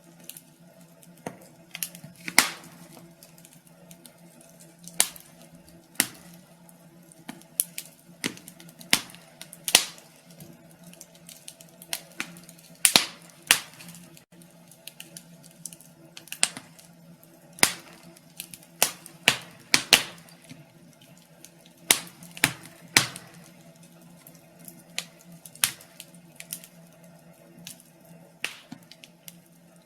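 Fire crackling in a fireplace: irregular sharp pops and snaps, a few of them louder, over a faint steady low hum.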